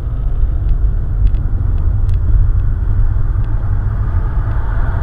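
Steady low rumble of a car driving at low speed, picked up by a dashcam mounted inside the cabin.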